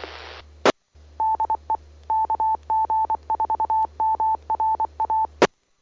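Amateur radio repeater's Morse code identification: a single beep tone keyed in dots and dashes for about four seconds, heard through the radio over a faint hiss. A short crack of static comes just before it starts and another just as it ends, as the repeater's carrier comes up and drops.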